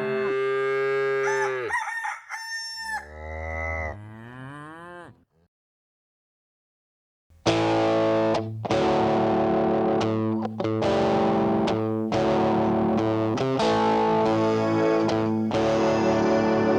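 Farm-animal calls for the first five seconds or so, pitched and bending, then a sudden silence of about two seconds. Electric guitar music with distortion then starts about seven seconds in and carries on, with steady chords.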